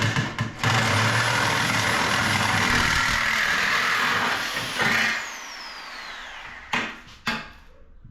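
A handheld electric power tool runs loudly for about five seconds. Then it is let go and its high whine winds down. Two sharp knocks follow near the end.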